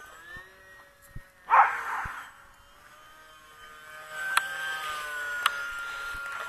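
The electric motor and propeller of a UMX Pitts micro RC plane whine in flight, the pitch gliding up and down, and the whine grows louder about four seconds in. A brief loud burst of noise comes about one and a half seconds in, and there are two sharp clicks later on.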